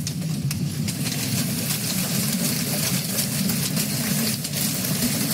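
Heavy hailstorm: a dense, steady clatter of hailstones pelting down over a constant low rumble.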